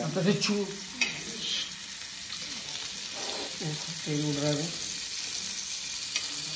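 Paneer cubes sizzling as they fry on a flat iron tawa, a steady hiss, with a slotted steel spoon clicking against the pan about a second in and again near the end.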